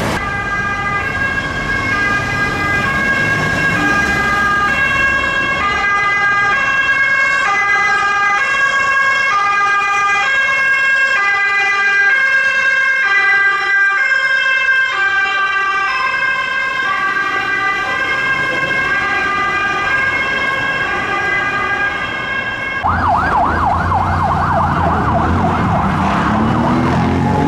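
Ambulance siren sounding a two-tone hi-lo pattern, switching steadily back and forth between two notes. About 23 seconds in it gives way to a faster warbling siren that sweeps quickly up and down.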